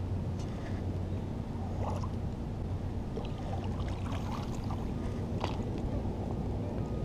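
Steady low hum of a running engine, likely a boat motor in the harbour, with a few small splashes and clicks about two to five seconds in as a hooked fish is handled at the water's edge.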